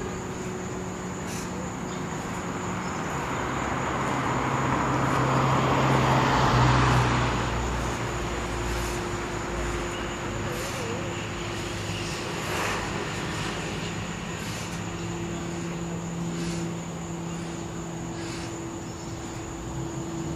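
A Quest Kodiak 100 turboprop with a five-bladed propeller passing high overhead: a distant steady drone that swells to its loudest about six or seven seconds in, then slowly eases off.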